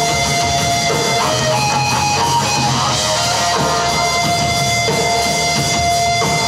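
Live rock band playing loud, steady music: distorted electric guitar holding long sustained notes over a drum kit.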